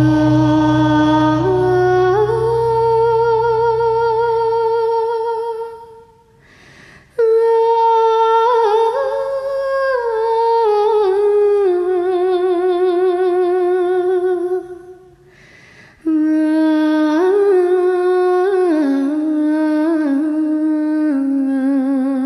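Background music: a solo voice sings a slow, wordless melody in long held notes with a wide vibrato, in three phrases with short breaks between them, over a low drone that fades out about five seconds in.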